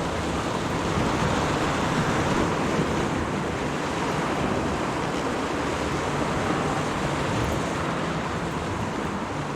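Sea waves washing steadily against the shore, with wind.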